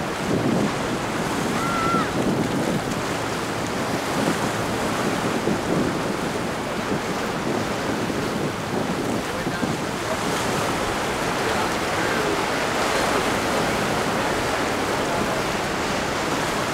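Ocean surf: waves breaking and washing steadily in a rough inlet, with wind buffeting the microphone.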